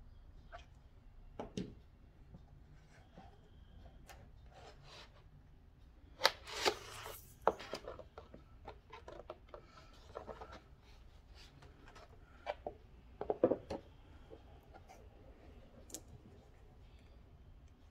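Plastic sheet and craft materials being handled on a tabletop: scattered clicks, taps and rubbing, with a louder crinkling rustle of the thin plastic chopping-mat sheet about six seconds in and a few sharper knocks around thirteen seconds in.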